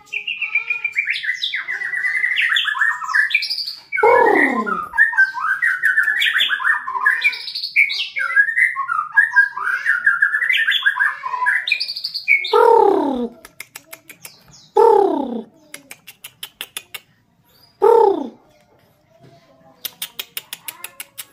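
White-rumped shama (murai batu) singing: a long, varied run of quick whistled phrases for the first dozen seconds, then rapid clicking runs later on. Four loud, lower calls that slide steeply down in pitch break in, one about four seconds in and three more in the second half.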